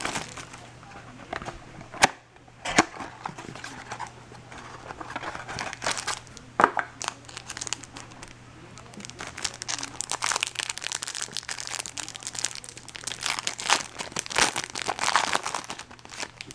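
Plastic wrapping on a sealed box of baseball cards crinkling and tearing as it is opened by hand, with a few sharp snaps.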